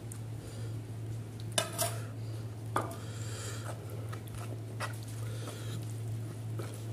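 Food being eaten by hand from a plastic plate: fingers squishing and mixing rice with catfish curry, with a few sharp clinks of a steel spoon against the plate, the loudest about a second and a half in. A steady low hum runs underneath.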